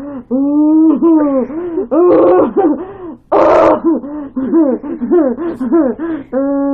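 A girl's voice making wordless, drawn-out moaning and hooting noises, the pitch arching up and down over and over, with a run of shorter quick ones in the second half.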